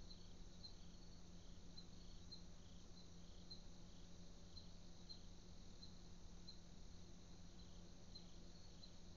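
Faint crickets chirping at night, a short chirp about twice a second, over a steady low hum.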